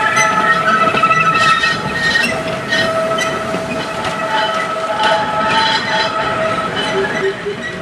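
Narrow-gauge steam train passing: its wheels squeal in several shifting high tones, with scattered clicks of wheels over the rail joints. It grows fainter toward the end as it moves away.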